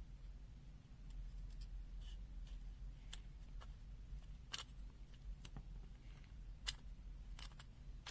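Scattered small clicks and taps, about eight in all, from the plastic parts and circuit board of an opened multimeter being handled, over a low steady hum.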